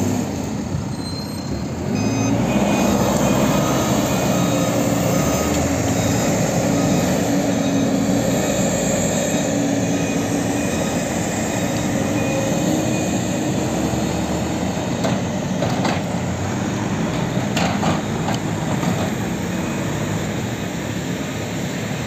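Diesel engine of a JCB 3CX backhoe loader running steadily under working load as its front bucket works, with a few sharp knocks in the last third.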